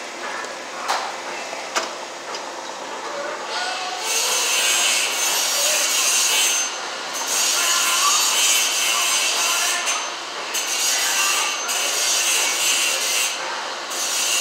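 Hand-tool work on electrical wires at a plastic outlet box: pliers and wire scraping and rubbing in repeated rasping strokes, each lasting a second or more, with a couple of sharp clicks near the start.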